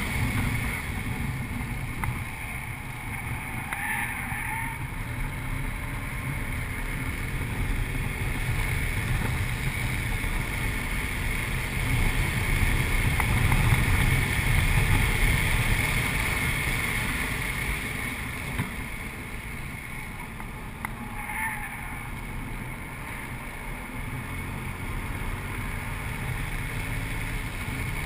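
Audi RS4's engine and tyre and road noise heard from inside the cabin while lapping a race track. It builds to its loudest about halfway through, eases off for a few seconds, then climbs again.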